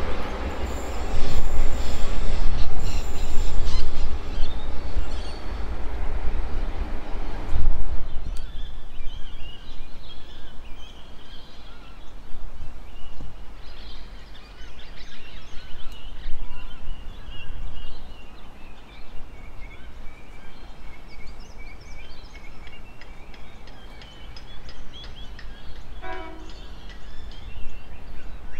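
3000-class diesel railcar running past, its low engine and wheel rumble loud until it breaks off about eight seconds in. After that, a quieter low rumble with birds chirping.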